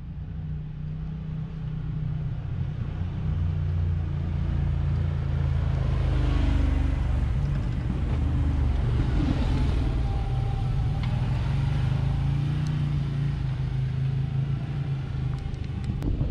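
Side-by-side UTV engine running steadily as it drives along a rocky dirt trail, with tyre and chassis rumble over the rough ground. It grows louder over the first few seconds, then holds steady.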